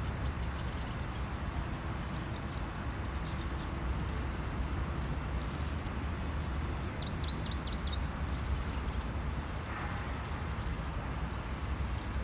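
Outdoor background sound: a steady low rumble, with a quick run of about six high bird chirps a little past halfway and a few fainter chirps here and there.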